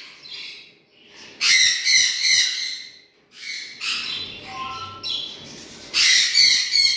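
Parrots calling in shrill, high-pitched bursts: once about a second and a half in, again around four seconds, and again near the end, with a short lower whistle just before the five-second mark.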